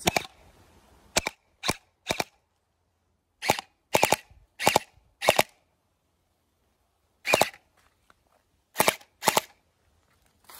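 Battery-powered Vasvarn UZI gel blaster firing about a dozen single shots of gel balls, each a short sharp crack, spaced irregularly with pauses and some fired in quick pairs.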